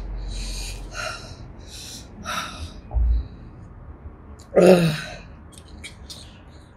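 Short, hissing breaths blown hard out through the mouth, four in quick succession, then a louder voiced exhale a little before the end: a person panting against the burn of Carolina Reaper chilli peppers. A brief low thump about three seconds in, and a few faint clicks near the end.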